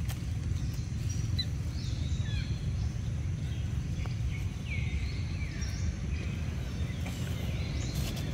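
Steady low outdoor background rumble with a few short, high chirping calls that fall in pitch, about a second in and again from about five seconds on.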